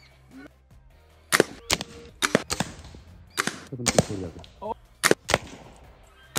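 Air rifle shooting at balloons: a quick run of sharp cracks and pops, about a dozen of them, from about a second in until near the end.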